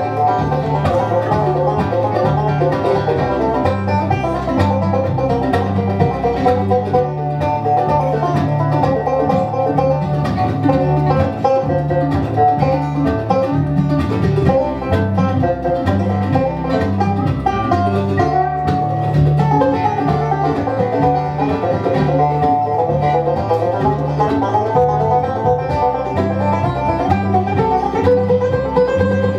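Live bluegrass band playing an instrumental break: a five-string banjo to the fore over acoustic guitar, mandolin and an upright bass keeping a steady alternating bass line.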